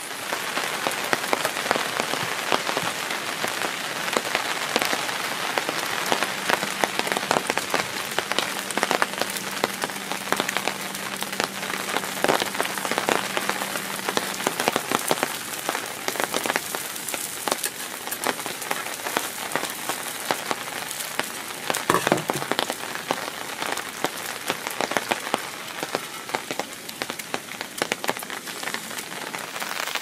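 Rain pattering steadily on dry leaves, a dense, even fizz of countless small ticks. A single dull knock comes about three-quarters of the way through.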